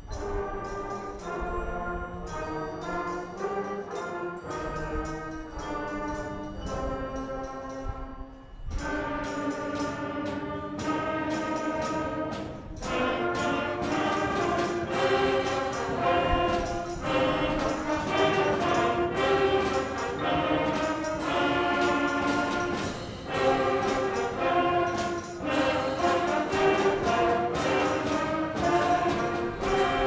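Beginning school concert band of woodwinds, brass and percussion playing a piece. The opening bars are lighter and quieter. About nine seconds in, the full band comes in louder, with strong repeated chords.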